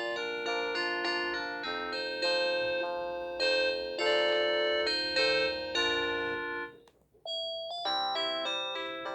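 Samsung SGH-T100 mobile phone playing polyphonic ringtones: a keyboard-like melody ends about seven seconds in, and after a short pause another ringtone begins.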